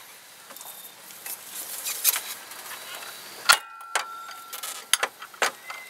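Scattered light clicks and knocks of metal parts being handled at the worn serpentine belt tensioner of a 1991 Ford F-150, with one sharp metallic clink about three and a half seconds in that rings briefly.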